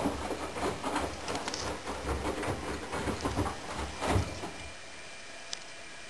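Candy GO4 1274 LH GrandO Plus front-loading washing machine tumbling wet cushions in its drum, with repeated soft thuds. The drum stops about four seconds in, leaving a faint steady hiss and one short click.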